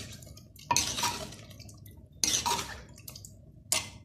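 A steel spoon stirs chicken pieces in oil in a clay handi, scraping and knocking against the earthenware pot three times, about a second and a half apart.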